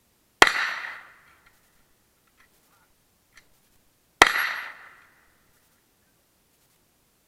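Two rifle shots about four seconds apart, each a sharp crack followed by a short echo that dies away within a second, from handloaded rounds being test-fired.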